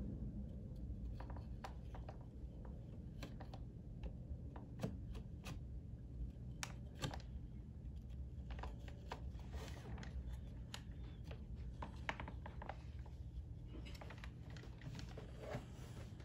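A heated flat metal blade scraping at a chainsaw's plastic housing, melting and shaving a little plastic away: a faint string of irregular clicks and scratches over a low hum.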